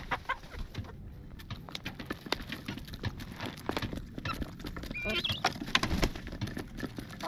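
Several chickens pecking at a pile of dried black soldier fly larvae: a rapid, irregular patter of beak taps. A brief high call about five seconds in.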